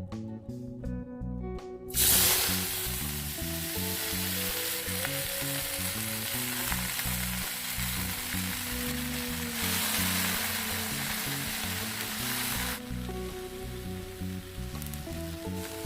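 Food hitting hot oil in a pan, sizzling loudly from about two seconds in and frying steadily with stirring, then dying down to a quieter sizzle near the end. Background music with a steady beat plays underneath.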